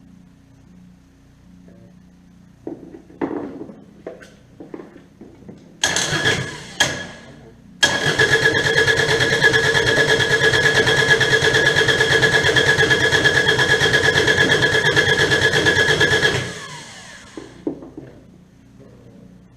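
Kubota D722 three-cylinder diesel turned over on its electric starter: a few clanks, a short bump of the starter about six seconds in, then about eight seconds of steady, even cranking with a whine before it stops. The injection pump has just been refitted and the fuel system still holds air, so the engine is cranking without settling into running.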